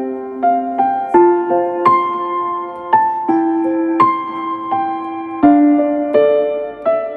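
Background music: a slow piano melody of single struck notes, each ringing out and fading, about one or two notes a second.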